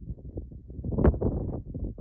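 Wind buffeting the microphone in an uneven low rumble, with two sharper thuds about a second apart.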